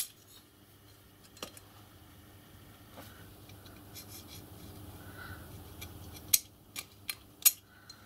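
Steel parts of a miniature locomotive's pony truck clinking and knocking together as they are handled and fitted by hand: a few sharp clicks, with a cluster of louder ones from about six to seven and a half seconds in.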